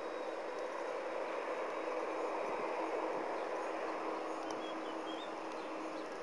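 Airbus A320-214's CFM56 turbofan engines running as the jet moves on the runway: a steady rushing hum with a faint steady tone in it, swelling slightly about halfway through and then easing.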